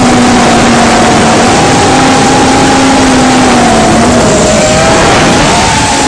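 FPV quadcopter's motors and propellers whining, recorded by its onboard camera, over a loud rush of wind and prop wash. The whine holds a steady pitch, then wavers and splits near the end as the motors change speed.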